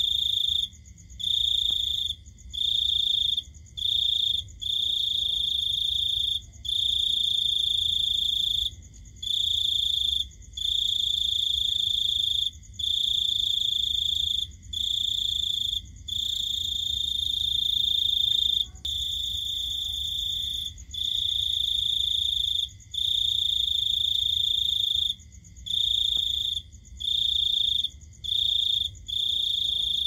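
A cricket trilling: a high-pitched, steady trill in bouts of one to two seconds with short breaks between them. A faint, lower steady tone runs underneath.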